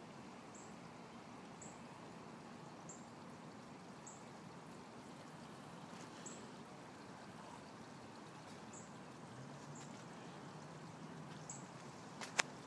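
Steady rush of flowing creek water, with a faint low hum under it and a single sharp click near the end.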